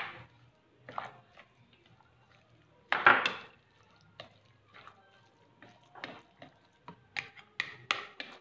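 A spoon stirring and scraping chopped cabbage and mashed sardines around a mixing bowl: scattered clicks and scrapes against the bowl, with one louder scrape about three seconds in and a run of quicker taps near the end.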